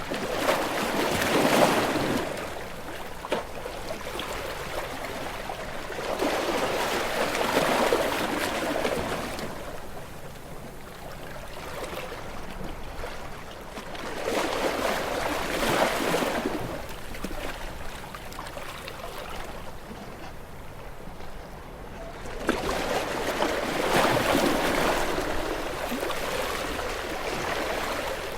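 Gentle sea waves washing onto a shore: four swells of surf that each build and fade away, about every seven to eight seconds, with a quieter wash between them.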